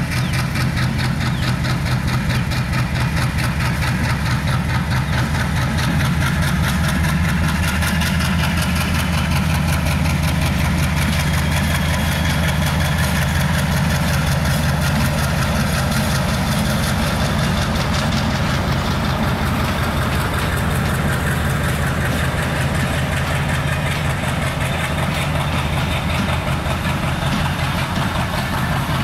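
Diesel-electric locomotive's engine running with a steady low throb as the train moves slowly past.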